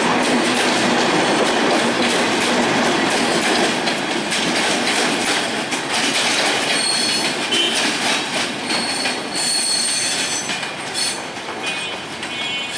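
Bangladesh Railway intercity passenger coaches rolling past close by, the wheels rumbling and clicking over the rail joints. From about six seconds in the rumble eases and high-pitched wheel squeal comes and goes.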